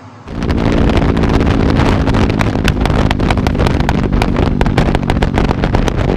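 Yamaha NMAX 155 single-cylinder scooter engine running through an aftermarket Tridente exhaust. It cuts in abruptly about a quarter second in and runs steadily, loud, with a dense crackle over the exhaust note.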